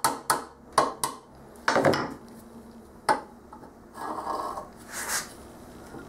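A hammer tapping a new steel bushing down into a tractor front-axle eye, several sharp metallic knocks in the first three seconds, to seat it flat with the surface. After that, softer clinks and a scrape as a steel straightedge is laid across the bushing.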